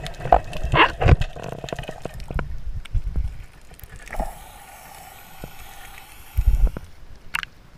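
Water sloshing and splashing around an underwater camera as it breaks the surface beside a surfacing scuba diver. Many sharp clicks and knocks in the first couple of seconds, and a burst of heavy thumps near the end.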